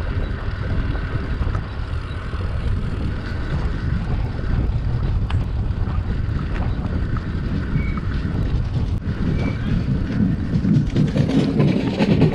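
Wind buffeting the microphone: a steady, rumbling low noise that grows a little louder near the end, with a few faint short high tones over it.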